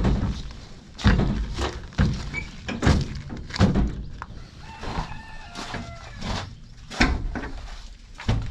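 Chickens calling and clucking, with a stretch of pitched calls in the middle. Several dull thumps and knocks, the loudest sounds, come in the first four seconds and again about seven seconds in.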